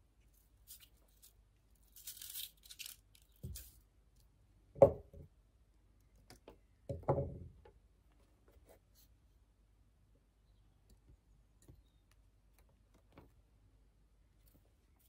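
Hand tools and a spool of wire being handled and set down on a cloth-covered table: light rustling, then a few soft thumps and knocks, the loudest about five seconds in, followed by faint small clicks of fiddling with fine wire.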